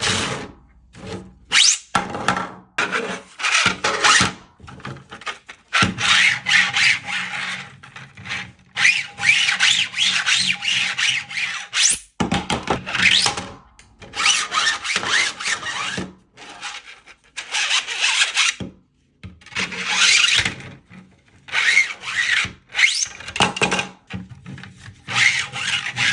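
Interlocking parts of a 3D-printed plastic twisting pyramid being twisted and slid against each other, giving a rasping, scraping sound in repeated strokes of a second or two, with short pauses between.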